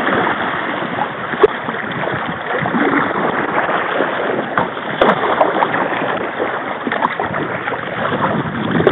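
Fast river current rushing and splashing around a paddled kayak, with paddle strokes in the water and two brief knocks, about one and a half and five seconds in.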